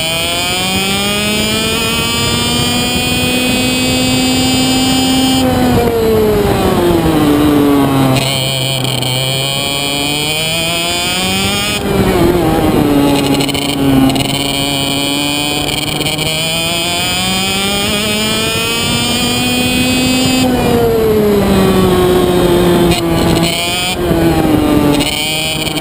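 Onboard sound of an IAME Reedster KF1 125cc two-stroke kart engine under racing load. Its pitch climbs in long rises as it accelerates along the straights, then falls away each time the throttle is lifted for a corner, about three times over, with a new climb starting near the end.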